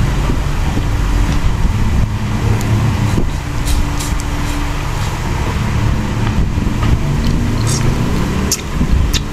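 Steady low motor rumble, like an engine running, with a few faint light clicks now and then.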